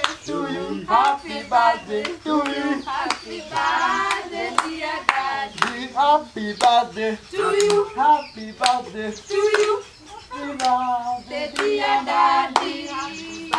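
A group of people singing together with steady rhythmic hand clapping, about two claps a second.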